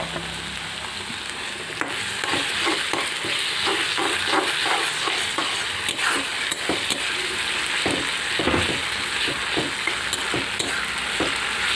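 Sliced onions and chilli sizzling in hot oil in a two-handled kadai, with a metal spatula stirring and scraping against the pan in repeated short strokes.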